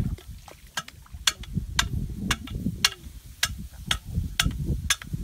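A run of sharp, evenly spaced clicks, about two a second, over a low rumble.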